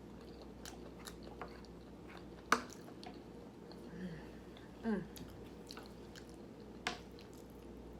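A person chewing food close to the microphone, with wet smacks and a few sharp mouth clicks, the loudest about two and a half seconds in.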